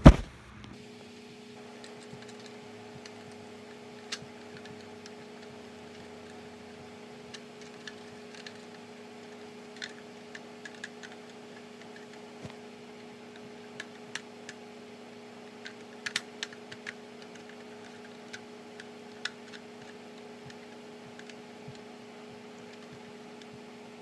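Faint, scattered plastic clicks and taps as a mounting bracket is fitted to a Simplex TrueAlert speaker strobe, over a steady low electrical hum. A sharp knock comes right at the start.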